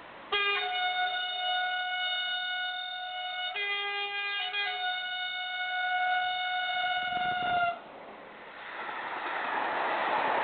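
Multi-tone train horn sounding one long chord for about seven seconds, switching briefly to a different chord about three and a half seconds in, then cutting off suddenly. A rushing noise then builds up, like a train approaching.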